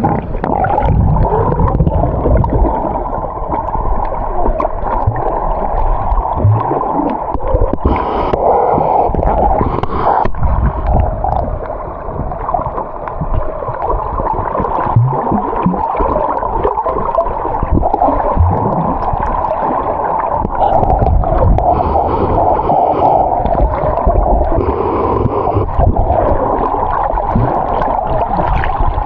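Muffled, continuous rushing and gurgling of sea water with a low rumble underneath and occasional small knocks.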